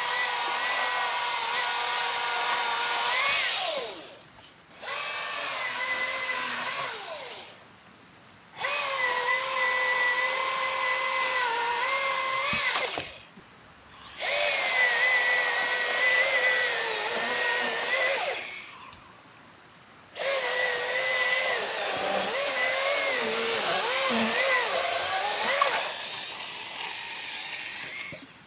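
Milwaukee 12V cordless mini chainsaw running in five bursts of a few seconds each, stopping between cuts. Its electric motor's whine wavers in pitch as it cuts into brush and branches, and the last run is quieter.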